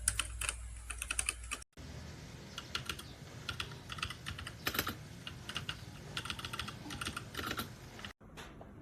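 Typing on a MetaMinor META68 65% hot-swappable mechanical keyboard: irregular runs of key clicks. The sound cuts out completely for a moment twice, once near the start and once near the end.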